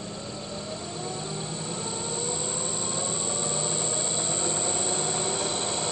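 Turnigy SK3 brushless outrunner motor, driven by an RC electronic speed controller, spinning up: its whine rises in pitch and loudness over about three seconds and then holds steady. A steady high-pitched whine sits over it throughout. The motor is turning in reverse.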